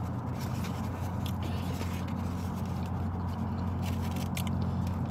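Steady low hum of an idling car heard inside its cabin, with a few faint clicks and scrapes as food is picked from a plastic takeout container and eaten.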